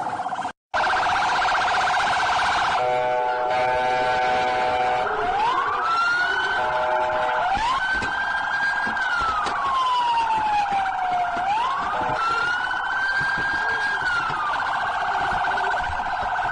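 Police car electronic siren cycling through its tones: a fast warbling yelp, then a steady honking tone, then a slow wail rising and falling in pitch, and back to the fast warble near the end. The sound cuts out for an instant about half a second in.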